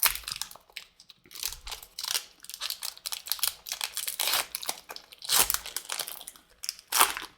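Wrapper of an Upper Deck trading card pack being torn open and crinkled by hand, a run of irregular sharp crackles that are loudest about five and seven seconds in.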